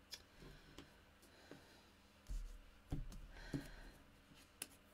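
Faint taps, clicks and rustles of small punched cardstock pieces being handled and set down on a tabletop, with a few soft low knocks about halfway through.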